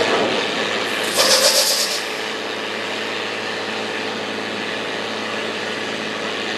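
Loaded log truck's diesel engine running steadily as the truck pulls slowly along, with a loud short burst of hiss about a second in.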